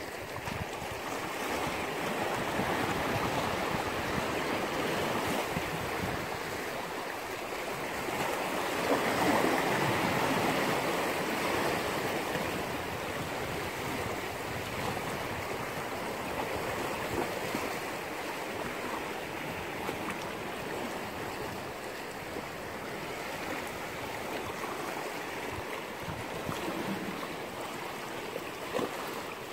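Sea waves washing against shore rocks, a steady rush that swells louder about nine seconds in.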